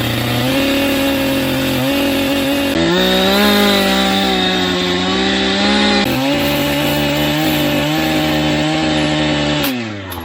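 Chainsaw running at high revs while felling a small tree. Its pitch steps up about three seconds in, drops back about three seconds later, and winds down near the end.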